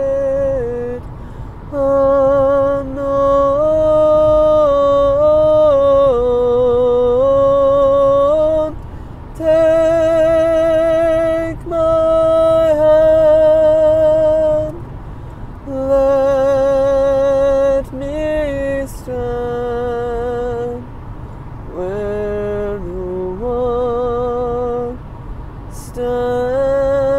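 A man's solo voice singing a slow hymn melody without accompaniment, in long held notes with vibrato and short breaks between phrases. Low, steady car road rumble runs underneath, inside the car's cabin.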